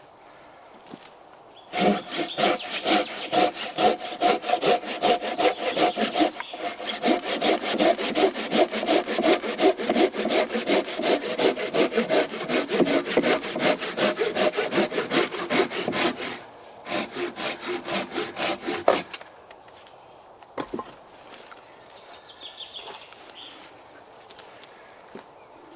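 Curved-blade hand saw cutting through a dead log in rapid, even back-and-forth strokes, starting about two seconds in. After a short break a few more strokes follow, and the sawing stops about three quarters of the way through.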